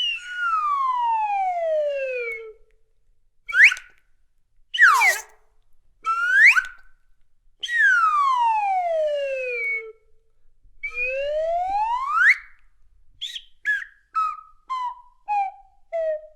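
Slide whistle toy playing pitch slides: a long slow slide down, quick swoops up and down, another long slide down and a long slide up, then a run of about seven short toots stepping down in pitch near the end.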